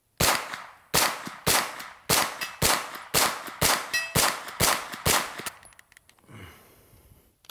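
Wilson Combat AR9-G 9mm carbine firing about ten semi-automatic shots, roughly two a second, with no stoppage. The last round empties the magazine, but the bolt fails to hold open.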